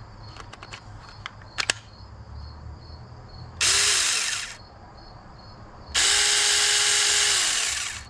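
Saker mini cordless electric chainsaw (20-volt, 4-inch bar) run twice with no load: a burst of about a second roughly three and a half seconds in, then a run of about two seconds from about six seconds in. Each time the motor spins up and winds down. Before that come a few sharp clicks as the battery pack is snapped into the saw.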